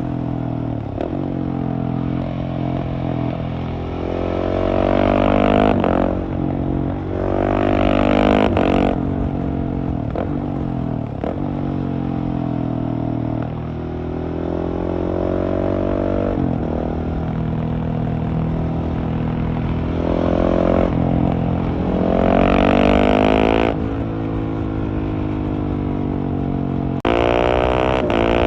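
Husqvarna 701's single-cylinder engine through a LeoVince Nero exhaust, pulling hard through the gears: the pitch climbs and drops abruptly at each quickshifter upshift, several times over, with stretches of easing off and cruising between.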